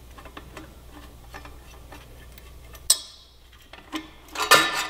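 Ratchet with a 12 mm socket clicking in quick, faint ticks as the motorcycle's exhaust header flange nuts are backed off. A sharp click comes about three seconds in, and a louder knock near the end.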